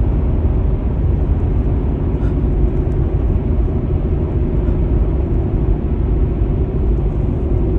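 Steady low rumble of a car heard from inside the cabin, the road and engine noise of a car in motion.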